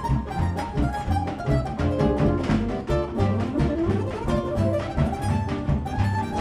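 Live folk-jazz band playing an up-tempo tune: quick plucked mandolin and guitar lines over a pulsing upright bass line and steady drum strokes, with bowed strings in the mix.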